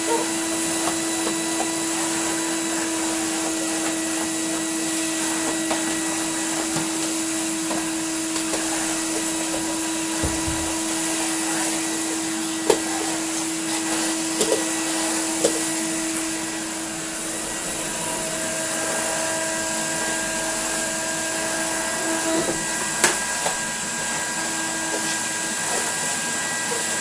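A 1988 Numatic Henry HVR200 canister vacuum cleaner running steadily on its freshly fitted carbon brushes, which it is bedding in, with a steady motor tone over the rush of suction as the floor tool is worked over a laminate floor. A few sharp knocks sound partway through.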